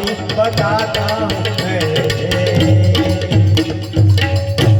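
Instrumental interlude of a devotional bhajan: a rapid tabla rhythm under a wavering melody, closing with a hard final stroke just before the end.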